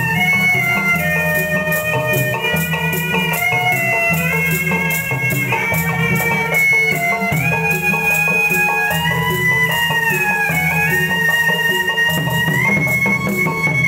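Betawi ondel-ondel accompaniment music: a melody line stepping up and down over a steady drum beat.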